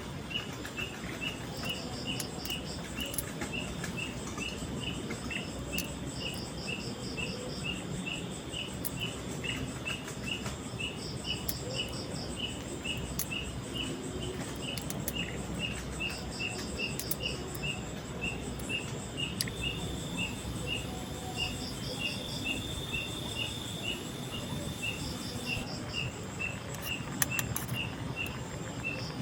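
Night insects calling steadily: one chirps regularly about two to three times a second, while another gives short pulsed trills about every two seconds, over a steady background hiss.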